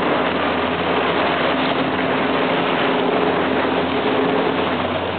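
Motorboat engine running steadily under a constant hiss of wind and water.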